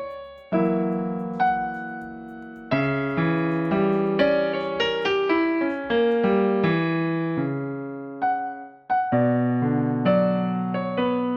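Solo piano playing a gentle melody over chords, each note struck and then fading, with a quicker run of notes in the middle.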